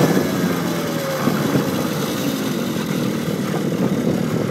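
Small 50cc pit bike engine running while riding; its pitch drops over the first second or so as the throttle eases, then holds steady, with wind noise over the microphone.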